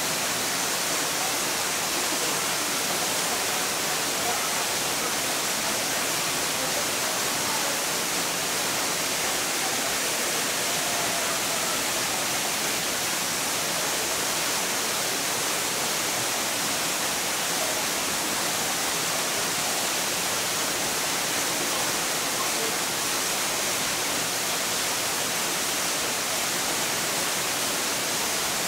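Steady, even hiss of falling water, unchanging throughout.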